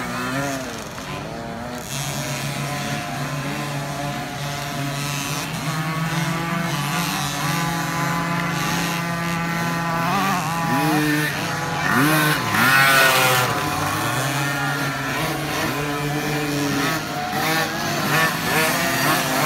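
Several 50cc two-stroke youth motocross bikes race around the dirt track, their engines revving up and down with the throttle. The loudest, highest rev comes about twelve seconds in.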